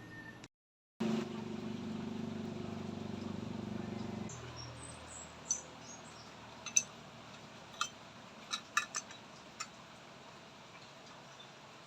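A steady low hum for about three seconds that stops abruptly, followed by faint scattered clicks and taps, with a few high chirps.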